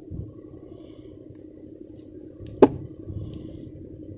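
Low rumbling outdoor noise with faint high chirps, broken about two and a half seconds in by a single sharp knock or slap, the loudest sound here.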